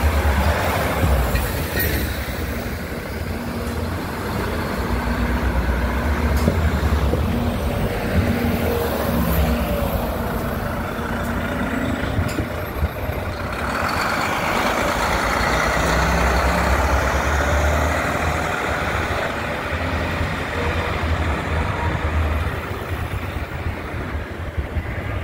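Diesel express coach buses running past at close range and pulling away, a steady low engine drone over street traffic, with a louder stretch from about halfway through.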